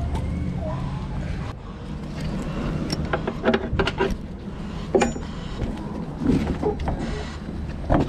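A low vehicle engine rumble that drops away about a second and a half in, followed by a run of sharp clicks and knocks, with a louder knock at the end.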